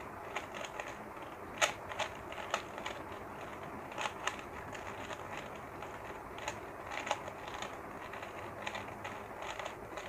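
Stickerless plastic 3x3 Rubik's cube being scrambled by hand, its layers turning with irregular clicks and clacks and several louder snaps.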